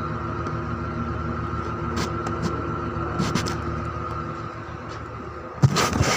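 Ford Expedition's V8 engine running steadily at idle, with a few light clicks and then a short burst of loud knocks and clatter near the end.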